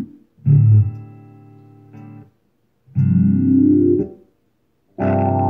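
Electric guitar chords played through an oscillating filter pedal, the filter sweeping up and down inside each chord. Three loud chords come about two and a half seconds apart, each cutting off abruptly.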